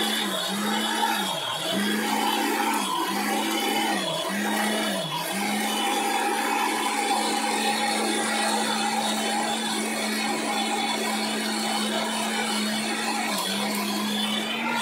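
A 1600-watt electric blender with a stainless-steel jar runs, grinding red chillies with a little water into paste. For the first five seconds or so the motor's pitch dips and recovers about once a second, then it holds a steady hum.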